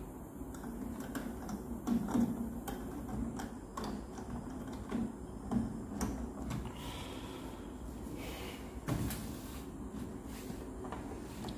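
Hand handling of a microwave oven's plastic control panel and circuit board as they are fitted and pressed into the metal chassis: scattered, irregular clicks and knocks with a couple of brief scrapes.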